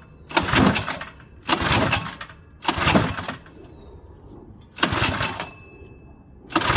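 Recoil pull-starter of a Craftsman 123cc four-stroke overhead-valve snowblower engine being yanked five times. Each pull is a short rasping whirr of rope and engine turning over without firing: three quick pulls, a pause, then two more. The engine, primed and on full choke, does not catch.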